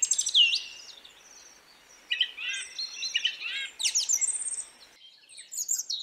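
Small birds chirping and calling in several quick bursts of short high notes, with a few fast downward-sweeping whistles. The background hiss drops out suddenly about five seconds in.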